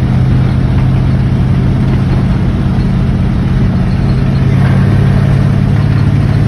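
A 1939 Ford street-rod truck's engine running at a steady cruise, heard inside the cab with road noise. A steady low engine note holds evenly throughout.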